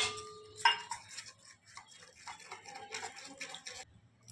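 A metal spoon stirring cornflour batter in a steel bowl: two ringing clinks against the bowl in the first second, then a run of scraping and tapping that stops shortly before the end.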